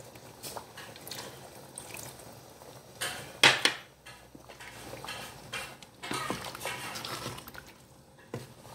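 Tamarind water poured from a bowl into a pot of simmering curry, with light clinks of bowl and ladle against the metal pot. A sharp clatter about three and a half seconds in is the loudest sound, and the ladle scrapes and stirs in the pot near the end.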